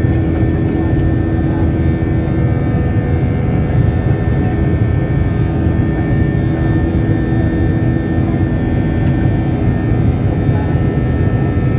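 Airliner engines running steadily after take-off, a constant loud rumble with a steady whine on top that does not change.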